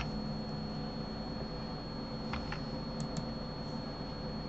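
Five sharp computer keyboard and mouse clicks: one at the start, then two quick pairs about two and three seconds in. Under them runs a steady low electrical hum with a thin high whine.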